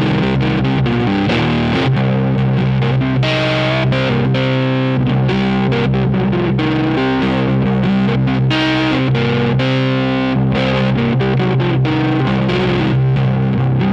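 Music with distorted electric guitar playing over steady, sustained low notes, loud and without a break.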